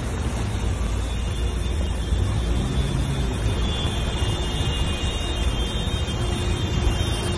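Car driving through a flooded street, heard from inside the cabin: a steady rush of engine and tyres pushing through the water over a deep low rumble.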